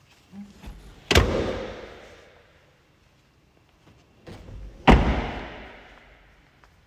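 Vauxhall Zafira Tourer doors being shut twice, once about a second in and again about five seconds in. Each slam comes after softer knocks and echoes off the room, dying away over about a second.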